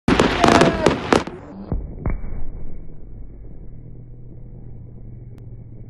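Aerial fireworks crackling and banging for about the first second and a half. The sound then suddenly goes dull and deep, slowed down, leaving a low muffled rumble with a steady hum and a couple of dull booms about two seconds in.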